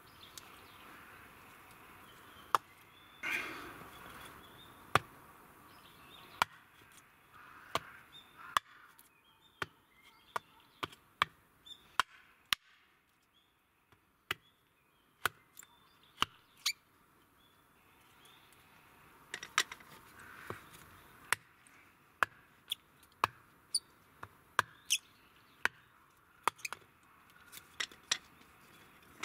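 A knife chopping into small blocks of wood on a log stump, splitting and trimming pieces of a small log: many short, sharp knocks at an irregular pace, in places a few a second. A brief scraping rustle comes about three seconds in.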